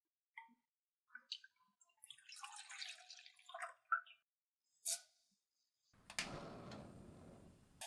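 Milk pouring into a stainless steel saucepan, with a few light knocks. About six seconds in, the gas burner underneath is lit: a click, then the steady rushing hiss of the flame.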